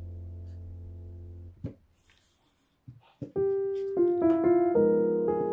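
Background piano music: a held chord fades and cuts off about a second and a half in. After a short gap with a few faint clicks, a new run of piano notes begins, louder than the chord.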